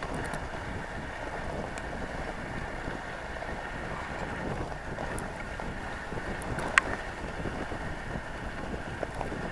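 Dog sled gliding over packed snow, a steady rushing noise of runners on snow with wind on the microphone. One sharp click about seven seconds in.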